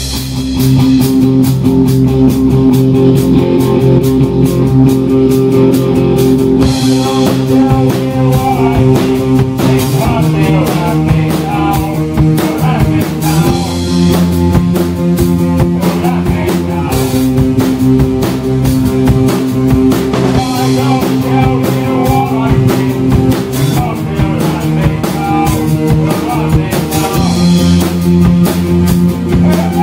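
Live rock band playing a song: drum kit and guitar over steady, held chords that change every few seconds.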